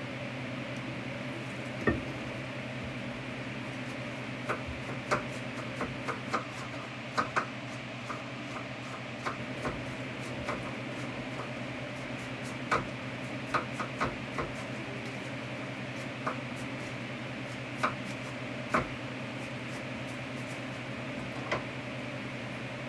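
Knife chopping vegetables on a plastic cutting board: irregular sharp knocks, some in quick clusters, over a steady hum.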